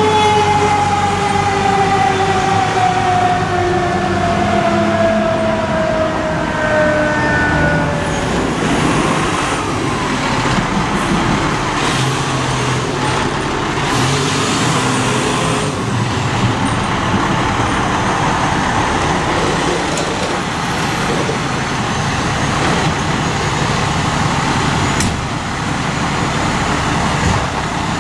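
A fire truck's siren winding down, its pitch falling steadily over the first eight seconds or so, then the engines of fire trucks running and pulling through an intersection amid street traffic, with a few sharp clicks along the way.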